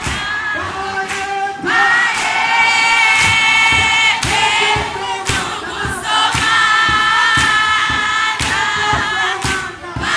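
A choir singing in close harmony in isiZulu, holding long chords that change every second or two, over a steady beat of sharp hits about twice a second.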